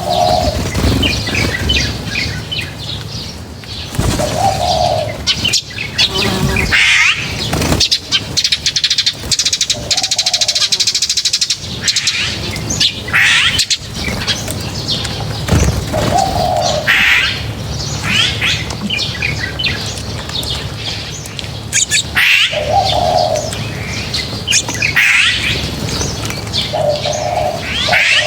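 A group of birds at a feeding spot: a short low call repeats every few seconds, mixed with higher rising chirps and quick fluttering flurries of wings.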